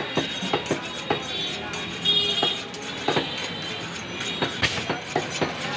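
A large butcher's knife being honed on a steel rod: repeated metal-on-metal strokes, scraping and clinking about twice a second, a few with a bright ringing edge.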